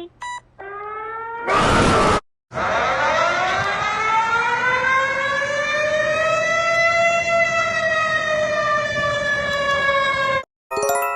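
An emergency alarm siren: after a couple of short beeps and a rising tone cut by a loud burst of static, a siren winds up slowly, peaks and winds down in one long wail, then cuts off suddenly near the end.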